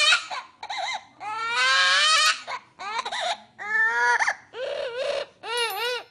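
Pet parrot giving a string of about seven high wailing calls, several of them rising in pitch, with one longer call a little over a second in.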